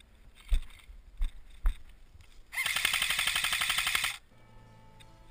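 Airsoft gun firing one full-auto burst of about a second and a half, a rapid, even string of shots. It is preceded by three sharp knocks.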